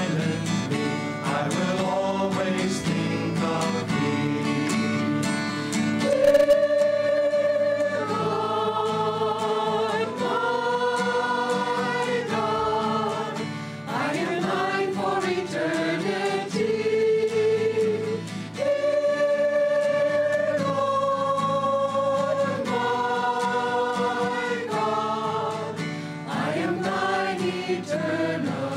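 Mixed choir of men and women singing in harmony, holding long notes, accompanied by acoustic guitars.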